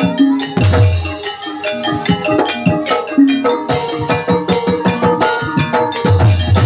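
Live Banyumasan gamelan music accompanying an ebeg dance: fast runs of short struck metallophone notes over hand-drum strokes, with a deep low sound welling up about half a second in and again near the end.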